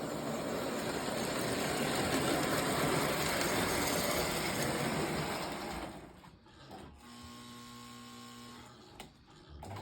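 Prewar Lionel 259E toy steam locomotive running on track, its electric motor and wheels making a steady mechanical whir and rattle that swells and then fades about six seconds in as it moves off. A quieter steady hum follows for a couple of seconds, ending with a click.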